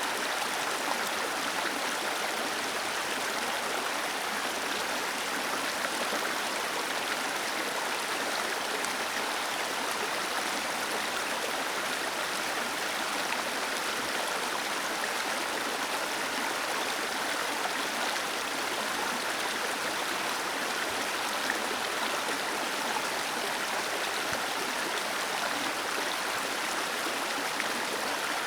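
Small waterfall cascading under a stone bridge: a steady rush of falling water.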